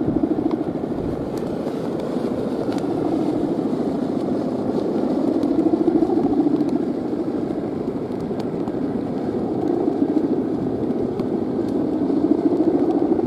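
Buzzing drone of a guangan, the bow-shaped hummer on a large Balinese kite, vibrating in the wind and swelling a little midway and again near the end.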